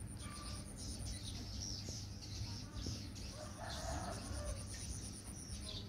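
Domestic chickens calling, with a rooster crowing about three and a half seconds in, over a steady low hum.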